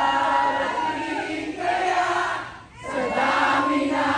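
Concert crowd singing along in unison, with a short break in the singing a little past halfway.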